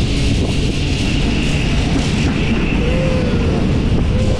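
Rumble of a 1906 double-decker electric tram running along its track, heard through heavy wind buffeting on a roof-mounted microphone, with a steady high whine over it.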